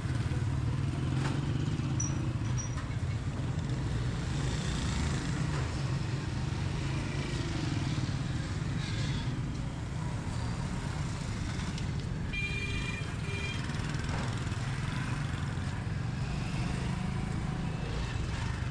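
Busy market street ambience: a steady low rumble of motorcycle and traffic engines under general street noise, with a few short high-pitched beeps about twelve seconds in.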